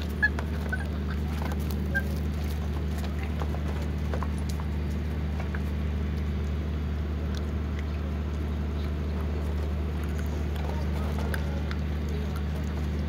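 Puppies eating chicken: small clicks and chewing noises with a few short high squeaks, over a steady low hum. The sharpest click comes just after the start.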